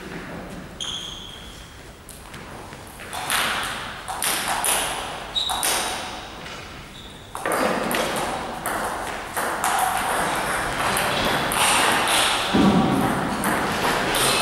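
Table tennis balls clicking off bats and table tops, a run of sharp ticks with short ringing pings, echoing in a large hall. It gets busier and louder about halfway through.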